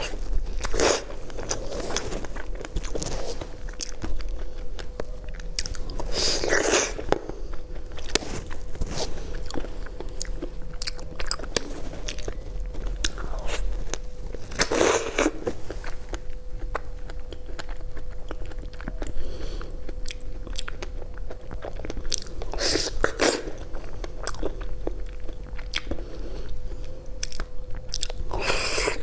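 A person eating ripe avocado up close to the microphone: steady biting and chewing, with a louder bite every several seconds.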